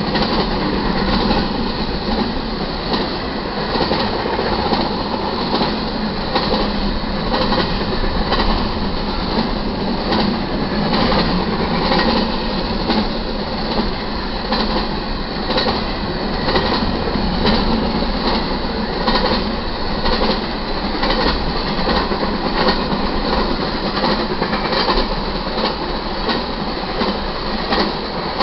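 Double-stack intermodal freight cars rolling past at track speed: steel wheels on the rails make a steady, loud rumble with a rhythmic clatter as each truck passes.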